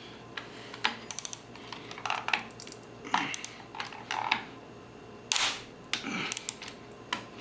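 Loose engine bolts clinking and a plastic parts bag rustling: a quick run of light metal clicks about a second in, then several short rustles as the parts are bagged.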